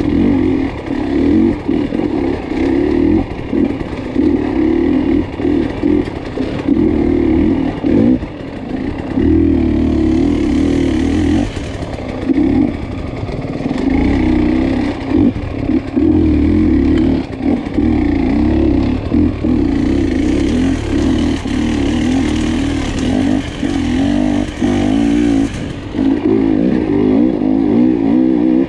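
Off-road dirt bike engine revving up and dropping back over and over as the throttle is opened and shut every second or so.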